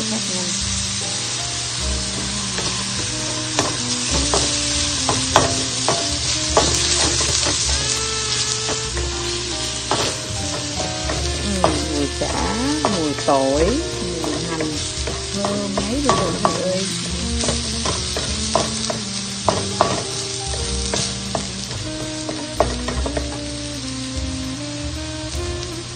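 Minced lemongrass sizzling in oil as it is stir-fried in a nonstick wok, with a wooden spatula scraping and tapping against the pan in scattered clicks.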